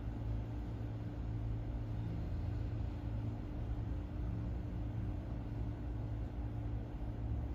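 Steady low rumble with a constant faint hum, unchanging throughout.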